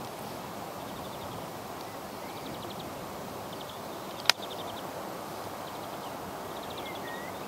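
Outdoor ambience: a steady rushing noise under short, high, rapid clicking trills that repeat every second or two. A single sharp click comes about four seconds in, and there are a couple of faint chirps near the end.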